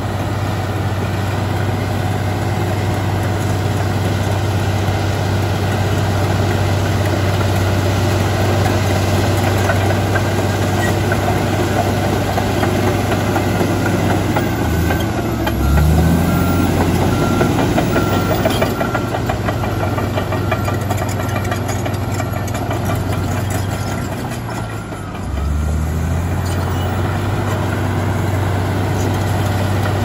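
Komatsu D85EX crawler bulldozer's diesel engine running steadily as the dozer pushes earth. The engine note drops and picks up again about halfway through, and once more a few seconds before the end.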